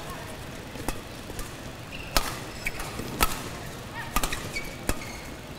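Badminton rally: rackets hitting the shuttlecock about once a second, each a sharp crack, with short squeaks of shoes on the court between hits over a steady arena murmur.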